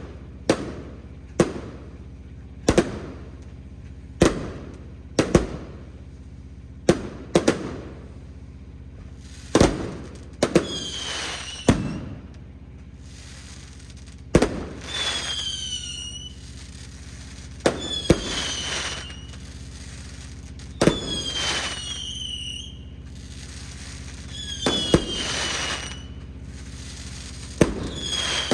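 Fireworks going off: a run of sharp bangs about a second apart, then from about ten seconds in, heavier bursts each followed by a cluster of falling whistles.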